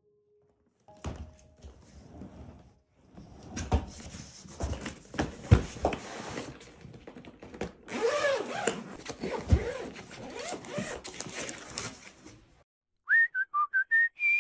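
Irregular rustling and clattering with several sharp knocks, then near the end a quick run of high whistled notes that ends on a held steady whistle tone.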